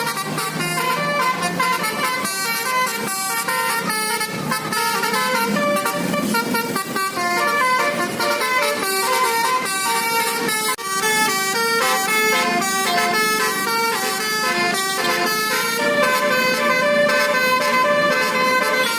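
A tour bus's Basuri telolet horn, a multi-tone musical air horn, plays a loud, continuous tune of short notes that keep stepping from pitch to pitch.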